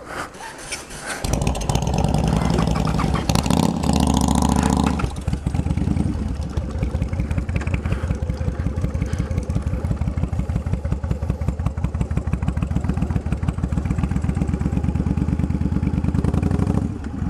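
Yamaha V-twin cruiser motorcycle engine coming in abruptly about a second in, revved for a few seconds, then running with a steady, even throb as the bike rolls slowly over grass. The throb dips briefly near the end.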